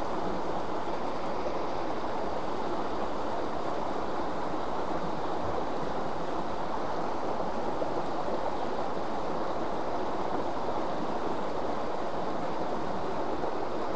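Fast-flowing river current rushing steadily, an even wash of water noise.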